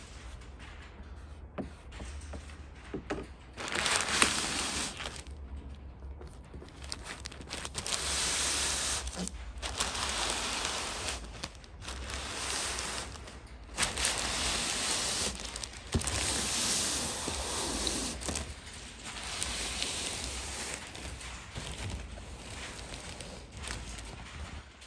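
Plastic film sheet over a vinyl hood graphic rustling and swishing as it is handled and rubbed down by hand, in repeated stretches of a few seconds each, over a low steady hum.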